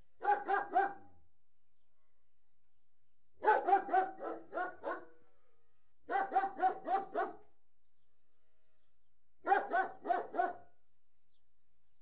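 Large Alsatian (German shepherd dog) barking in four bouts of three to six deep barks each, separated by pauses of one to two seconds.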